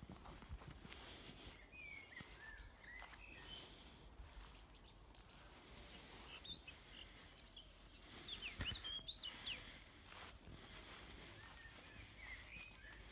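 Birds chirping in short whistled phrases, in several bursts, over a quiet background with a few faint clicks.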